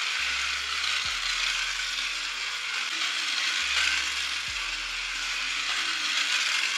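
Battery-powered toy bullet train running steadily around its plastic track: the whirring of its small electric motor and gears.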